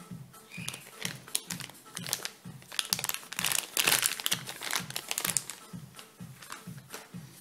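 Thin plastic bag crinkling and rustling as a battery charger is pulled out of it, loudest around the middle. Background music with a steady beat underneath.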